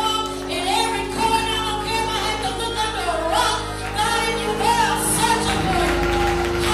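Sung worship music: a voice carrying a wavering melody over sustained keyboard-like chords, which change a little before the end.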